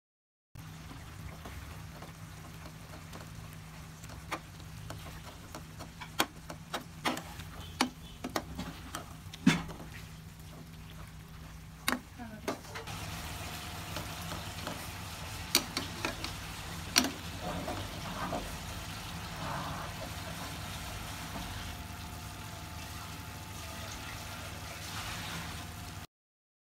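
A slotted metal spatula stirring potato and tuna curry in a metal pan, with sharp clicks and scrapes against the pan. Under it is a soft sizzle of the simmering curry and a steady low hum, which get a little louder about halfway through.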